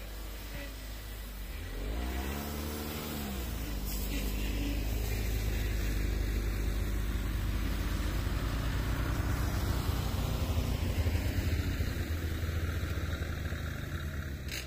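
Engines of an ATV and a snowmobile passing on a snowy track, the ATV (a Rosomakha Extreme Plus) pulling the running snowmobile behind it on a tow rope. The engine note rises and falls about two seconds in, and the sound grows louder as they go by, then fades near the end.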